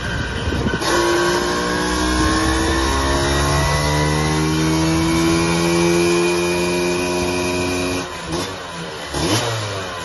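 Classic Vespa scooter's two-stroke single-cylinder engine making a dyno pull: from idle the throttle opens about a second in and the revs climb steadily for about seven seconds, then the throttle shuts and it drops back with a few short blips.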